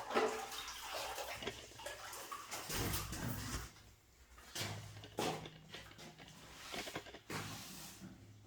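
Wet sponge and water swishing and splashing in irregular strokes as wet white cement is wiped off the floor around a newly set toilet bowl.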